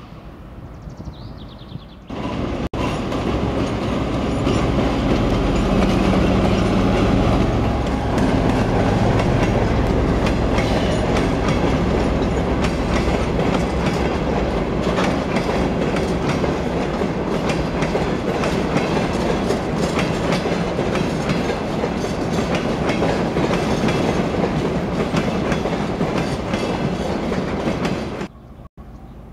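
Twin-section 2M62U diesel locomotive rolling past, its diesel engines running while its wheels clatter over the rail joints in a steady clickety-clack. The sound cuts in about two seconds in and cuts off suddenly near the end.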